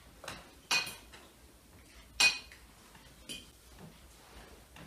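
Cutlery and plates clinking as people eat at a dinner table: about four short, sharp clinks, the loudest about two seconds in.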